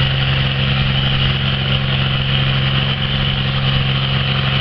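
Pulling tractor's engine running at a steady speed, a loud deep drone with no revving.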